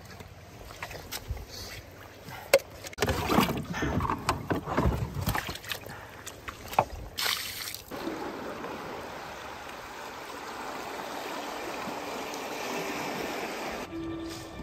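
Water sloshing and splashing inside a canoe's hull, with knocks against the hull, after the canoe has shipped a lot of water. About eight seconds in it changes abruptly to the steady rush of a fast-flowing river.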